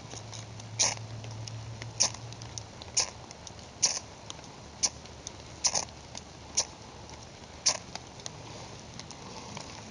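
A ferrocerium rod struck with the spine of a knife, about eight sharp scrapes roughly once a second, throwing sparks at gunpowder from a rifle cartridge laid in birch-bark tinder.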